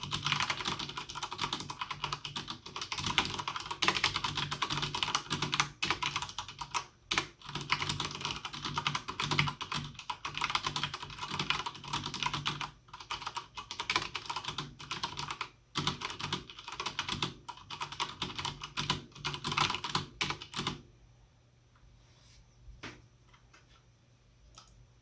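Fast, continuous typing on a Logitech G710+ mechanical keyboard with Cherry MX Brown switches, a dense run of key clicks. The typing stops about 21 seconds in, leaving only a couple of faint keystrokes.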